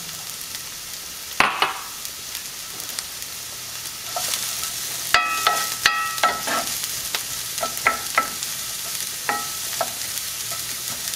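Diced onions sizzling in hot oil in a cast iron skillet. From about five seconds in, a wooden spoon stirs them and knocks against the pan, each knock ringing briefly.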